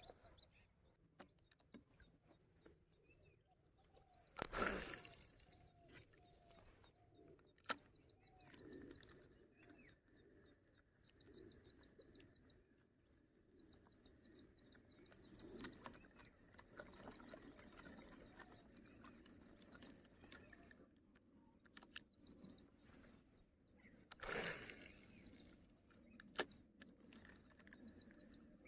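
Near silence: faint birds chirping, with two short rushes of noise, one about four seconds in and one near the end, and a few sharp clicks.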